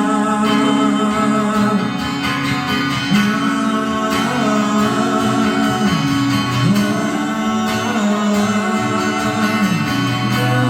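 Live worship band music: guitar over sustained chords, with a voice singing a gliding melody without clear words.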